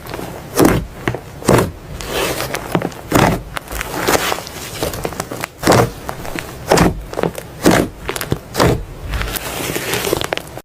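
Slime being squeezed and pressed by hand: a run of short crackling pops and squelches, roughly one a second, over a steady crackle.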